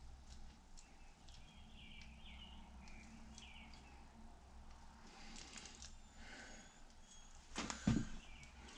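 Faint clicks and small knocks of transmission parts being handled on the bench over a low steady hum, with one louder knock near the end.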